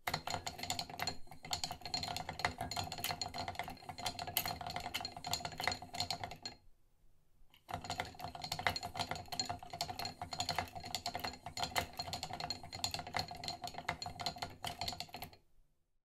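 Steel kitchen knives rattled in a wooden knife block: a dense, continuous clatter of small metal-on-wood clicks that pauses for about a second midway, resumes, and stops shortly before the end.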